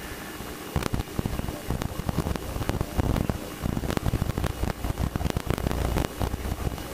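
Cabin noise in a Piper Cherokee in flight: the steady low rumble of the engine and propeller, with frequent irregular crackling pops over it.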